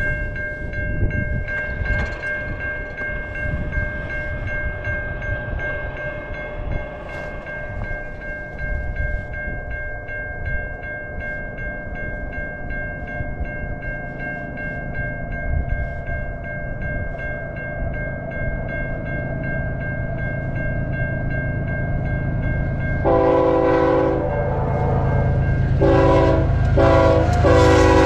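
Grade-crossing warning bell ringing steadily while a freight train's rumble grows as it approaches. About five seconds before the end the CN locomotive's chime air horn sounds the crossing signal: a long blast, two short blasts, and another long blast starting right at the end.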